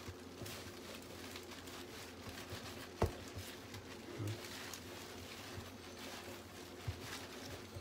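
Hands kneading bread dough on a floured countertop: soft pressing and rubbing, with a sharp knock about three seconds in and a couple of lighter thumps, over a low steady hum.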